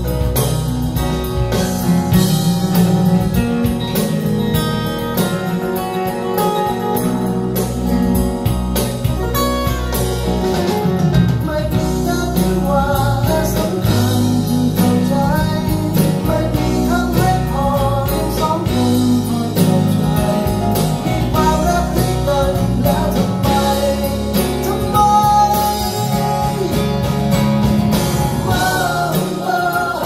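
A song with guitar and a singing voice played back over ProAc D20r floor-standing loudspeakers driven by a Bryston B135 amplifier from a BCD-3 CD player. The voice comes in more strongly about a third of the way through.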